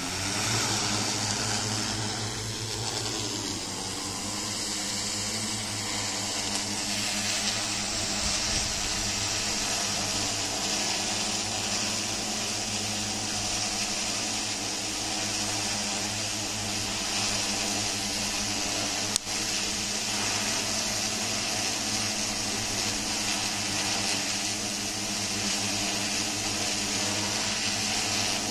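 Large quadcopter drone's rotors spinning up and lifting off, then hovering with a steady, multi-toned buzz. A single sharp click comes about two-thirds of the way through.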